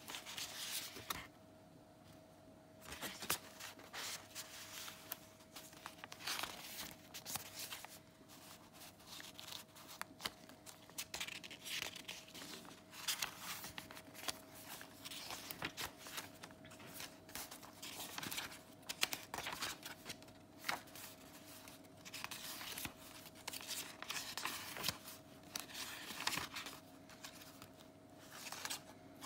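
Paper pages of a handmade junk journal being turned one after another: repeated irregular rustles and flaps of paper, over a faint steady hum.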